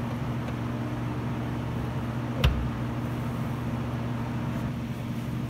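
A rear brake drum on a 2008–2011 Ford Focus slides onto the hub and seats with a single short knock about halfway through. It goes on without resistance now that the brake shoes are centred. Under it runs a steady low hum.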